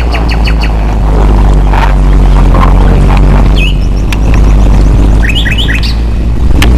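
Birds chirping in short high calls, a quick run of them a little past the middle, over a loud steady low drone.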